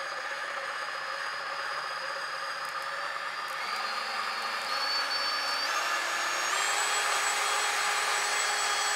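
DeWalt Atomic 20V MAX brushless compact cordless bandsaw running with no load, a steady motor-and-blade whine. Its pitch steps up about four times in the second half, each a little higher and louder, as the speed dial is turned up through its 150 to 380 feet-per-minute range.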